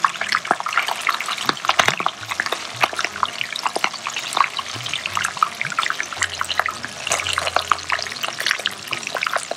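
Trout pieces frying in hot oil in a frying pan: a steady sizzle thick with small crackles and spatters.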